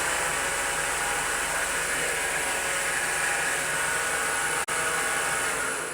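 Homemade variable-speed belt grinder running: electric motor and sanding belt giving a steady whirring with a constant high whine. It drops out for an instant about two-thirds through.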